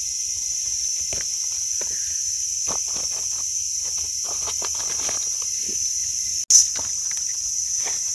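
A steady, high-pitched drone of forest insects, with irregular crackles and crunches of footsteps and rustling leaf litter beneath it. About six and a half seconds in, the sound cuts out for an instant and returns with a short pop.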